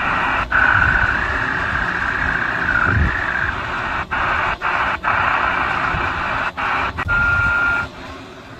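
Si4732 mini radio's receiver audio: steady static hiss as it is tuned up through the low medium-wave band in LSB mode, cutting out for an instant several times as the frequency steps. A high whistle, typical of SSB reception passing over a carrier, wavers through the first few seconds and returns briefly near the end, and the hiss drops away just before the end.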